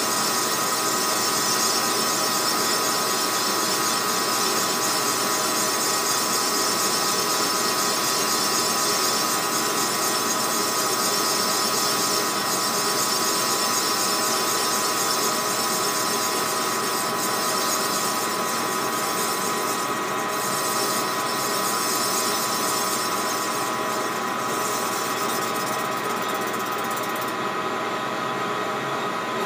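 Metal lathe running and cutting an aftermarket STIHL MS 660 chainsaw cylinder: a steady machine hum with a constant whine. The high hiss of the cut drops away near the end.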